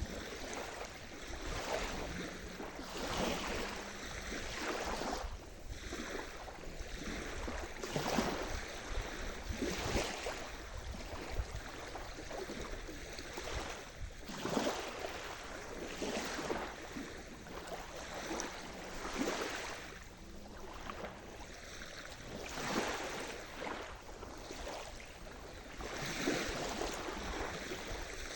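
Sea surf: small waves breaking and washing over the shore, with irregular splashes every second or two over a steady wash of water.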